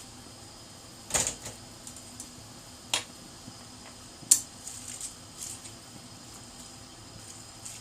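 Kitchen clatter: three sharp knocks about a second, three and four seconds in, the last the loudest, followed by a few fainter clicks.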